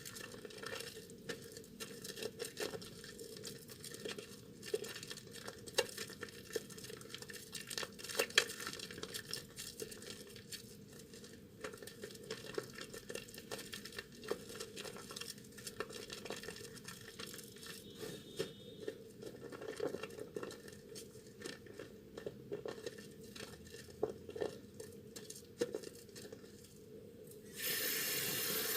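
Hands squeezing and rubbing a soaked bar of Duru Gourmet soap into lather, making a dense run of small wet crackles and squelches. Near the end a tap is turned on and water runs steadily.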